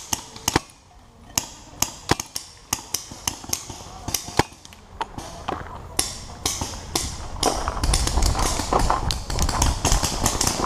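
Paintball markers firing: a string of sharp, irregular pops for the first five seconds or so. From about six seconds in come running footsteps and movement rumble on the camera.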